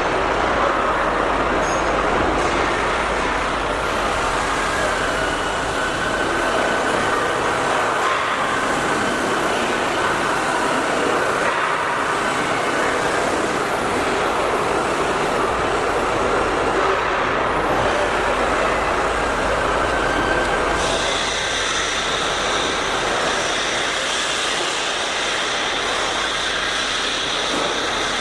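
CNC plasma cutting machine cutting metal plate: the plasma arc and its air jet make a steady, loud hiss.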